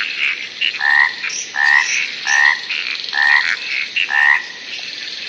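Frogs croaking: one frog gives five short calls, about one every 0.7 seconds, over a steady high-pitched chorus of other frogs or insects.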